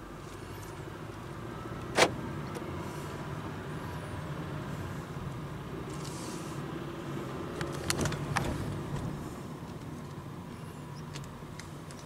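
Car driving slowly, heard from inside the cabin: a steady low engine and road hum. There is one sharp click about two seconds in, and a few more clicks around eight seconds.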